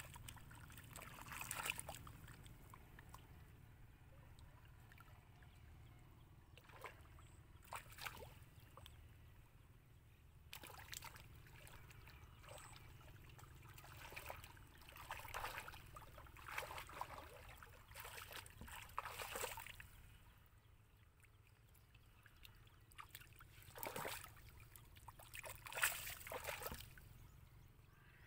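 Hands and feet sloshing and splashing in shallow muddy water: irregular small splashes, a sharper one near the end.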